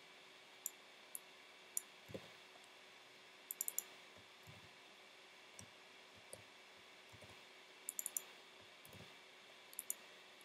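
Faint, sparse clicks of a computer keyboard and mouse, some in quick runs of two or three, over quiet room tone.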